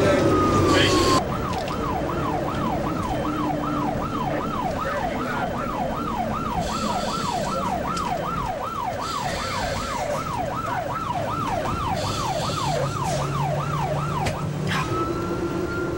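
Rescue unit's siren heard from inside the patient compartment, over the low rumble of the moving vehicle. It starts on a slow wail, switches to a rapid yelp of about two and a half sweeps a second about a second in, and goes back to the slow wail near the end.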